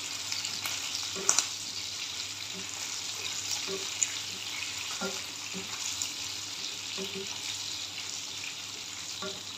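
Garlic cloves and cumin seeds sizzling in hot oil in a non-stick frying pan, with a steady frying hiss. A wooden spatula stirring them gives small taps and scrapes against the pan every second or so.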